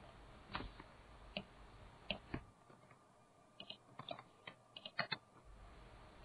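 Faint typing on a computer keyboard: scattered, irregular keystrokes, coming faster in the second half.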